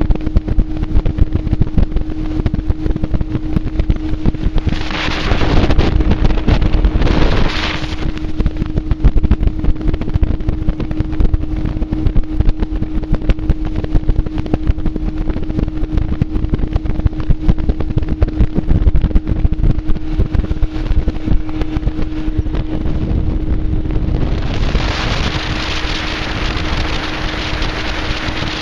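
Bass boat's outboard motor running at speed with a steady drone, under heavy wind buffeting on the microphone. A louder rushing hiss sweeps over twice: about five seconds in, and again near the end.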